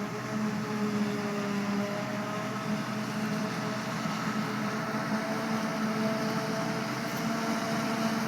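Farm machinery engine running steadily under load, its pitch shifting up slightly about two seconds in.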